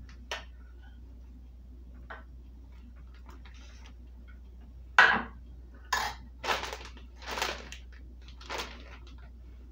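Metal spoon clinking and scraping against a small metal saucepan in a handful of separate strokes, the loudest a sharp clink about five seconds in.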